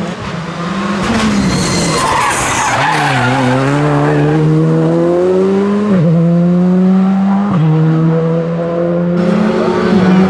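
Škoda Fabia R5 rally car's turbocharged four-cylinder engine under hard acceleration through the gears. The engine note drops about three seconds in, then climbs steadily, with a short dip at each upshift near six and seven and a half seconds.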